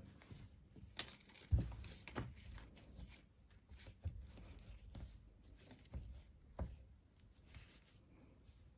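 Faint rustling and crinkling of a crocheted paper-yarn piece being handled and worked, with scattered light taps and clicks. The sharpest tap comes about a second and a half in.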